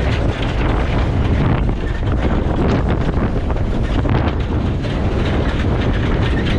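Strong wind buffeting the microphone aboard a sailing yacht under way in fresh wind, a loud steady rumble with rushing noise over it.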